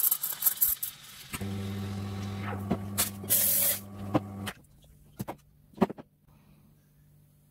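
Espresso machine steam wand hissing with crackles as milk is steamed in a stainless pitcher, stopping about a second and a half in. The machine's pump then hums steadily for about three seconds, and a few sharp clinks of cup and pitcher follow.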